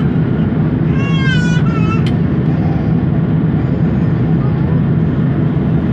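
Steady, loud low rumble of an Airbus A330-300's engines and airflow heard inside the cabin. About a second in, a brief high, wavering cry cuts through it, followed by a short click.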